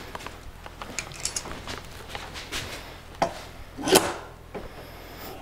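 Light wooden knocks, clicks and rubbing on a hardwood workbench as a small stop is set into a bench dog hole and a thin wooden strip is slid into place against it. The sharpest knock comes about four seconds in.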